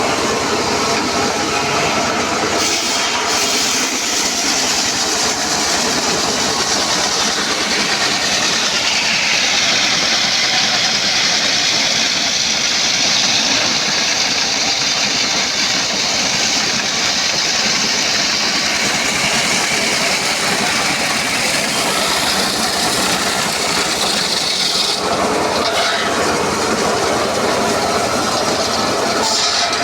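Circular sawmill blade cutting a teak log: a loud, continuous rasp and whine of the spinning blade in the wood, its pitch shifting a little as the cut goes on.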